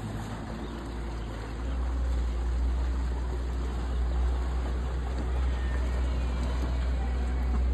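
Passenger boat's inboard engine running as the boat pulls away, a steady low rumble that grows louder about a second and a half in and then holds.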